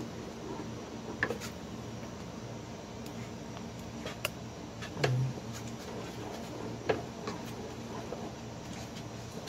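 Wooden spoon stirring a thick, sticky pudding mixture in a nonstick pot, with several sharp knocks of the spoon against the pot, the sharpest about seven seconds in, over a steady low hum.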